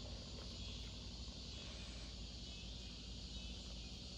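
Steady chirring of an evening insect chorus, crickets, over a low steady hum.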